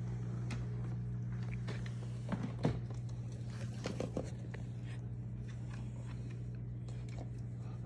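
Steady low electrical hum of reef aquarium equipment, with scattered faint ticks and a few short knocks about two and a half seconds in and again about four seconds in.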